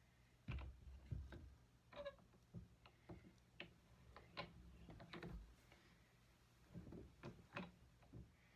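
Scattered light clicks and knocks of small metal tools and gold ring stock being handled at a jeweller's bench, irregular rather than rhythmic, over a faint low hum.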